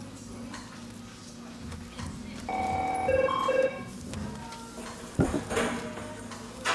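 A low steady background hum. About two and a half seconds in, a second-long electronic ring of pitched tones sounds, switching between two notes, like a telephone ringer. A single sharp knock follows a couple of seconds later.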